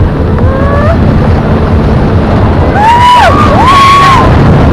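Steady low rumble of a motorboat's engine and wind buffeting the microphone, with people calling out in two rising-and-falling whoops about three seconds in.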